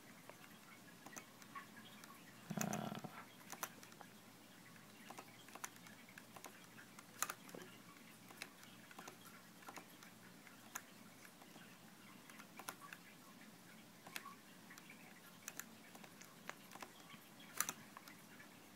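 Faint, sparse, irregular clicks of a laptop's keys and touchpad buttons, with a short muffled bump about two and a half seconds in.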